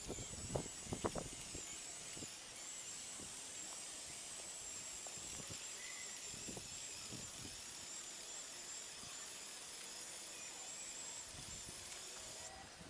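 Small electric motors and gearing of a remote-controlled LEGO Technic bridge girder erection machine whining steadily as they drive the girder forward, cutting off near the end. A few light clicks sound near the start.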